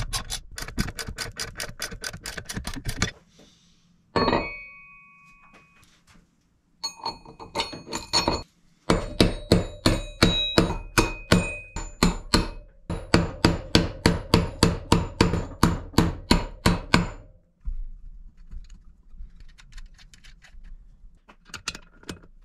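Hand ratchet wrench clicking in quick, even runs, about four or five clicks a second, as bolts are tightened. A single metal ding rings out about four seconds in.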